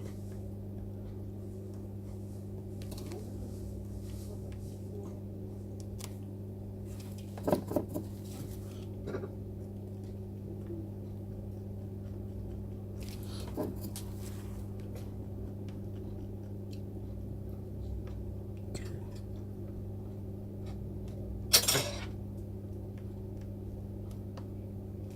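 Steady low electrical hum of bench equipment, with a few brief metallic clinks of small hand tools on the workbench, the loudest about a third of the way in and again near the end.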